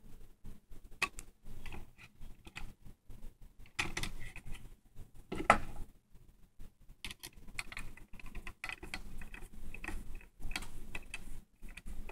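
Screwdriver driving small screws into a plastic trackball housing, with plastic parts being handled: irregular small clicks, ticks and scrapes, one sharper click about five and a half seconds in.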